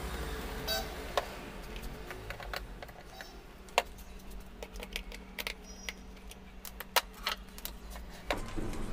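Irregular small clicks and taps of a screwdriver and plastic fittings as the timer relay is unscrewed and taken off the star-delta starter panel. A faint steady hum runs underneath.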